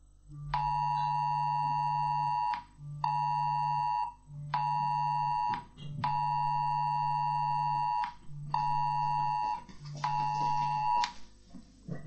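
Smartphone sounding the UK Emergency Alert attention signal: a two-tone alarm in a repeating pattern of one two-second tone then two one-second tones, with short gaps, played twice and stopping about a second before the end. Under each tone is the buzz of the phone's vibration, in time with the alarm.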